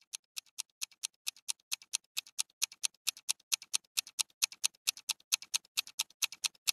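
Rapid phone-keyboard typing clicks used as a cartoon sound effect for someone composing a text message, short sharp taps at about five a second.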